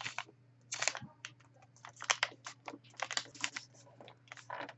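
A sheet of paper being folded and creased by hand, rustling and crinkling in short, irregular bursts.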